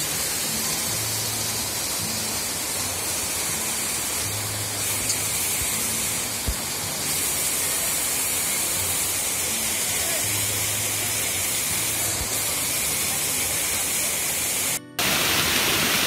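Waterfall water rushing down over rocks in a steady hiss. Just before the end it drops out for a moment and comes back louder.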